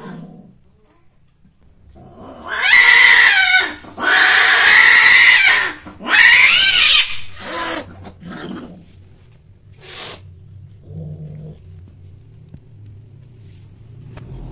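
A cat yowling at another cat in a face-off. There are three long, loud, wavering yowls close together, then a few shorter, fainter growling calls that die away.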